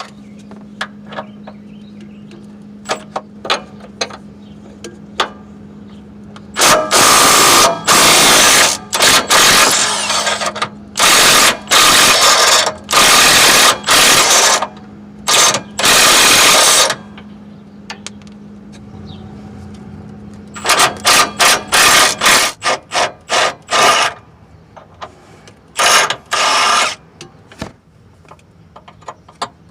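Impact wrench hammering in several long bursts, then a run of short trigger pulls, loosening the 18 mm insulator bolt of a Jeep Grand Cherokee's passenger-side motor mount. A few light clicks come before the first burst, and a steady low hum runs underneath.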